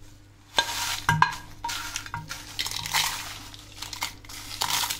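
Crisp dry-roasted red chillies tipped into a stainless-steel mixer-grinder jar, rattling and clinking against the metal in a string of clattery strokes that start about half a second in.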